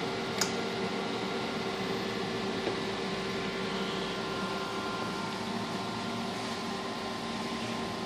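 Biotage Initiator microwave synthesizer running: a steady fan-like whir and hum with a few constant tones, broken by one sharp click about half a second in and a faint tick a couple of seconds later.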